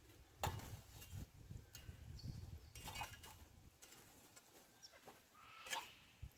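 Campfire crackling with scattered sharp pops, over a faint low rumble that dies away about two-thirds of the way through.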